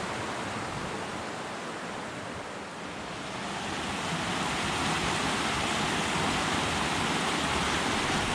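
Rushing water of a mountain stream, a steady even roar that grows louder about halfway through.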